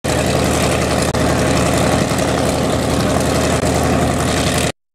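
Hawker Sea Fury's radial piston engine idling as the fighter taxies, a steady propeller-plane drone. It drops out briefly about a second in and cuts off abruptly near the end.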